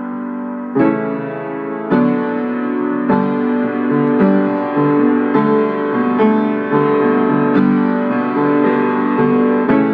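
Upright piano played solo: sustained chords struck about once a second, with further notes moving between them.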